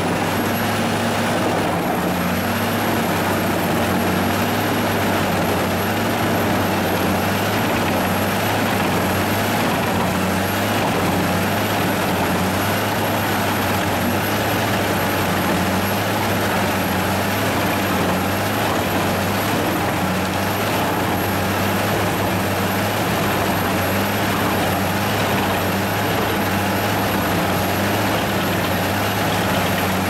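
Tractor-driven wood chipper running steadily: the low hum of the tractor engine under the chipper's dense, even noise, with a thin high whine that sets in about a second and a half in.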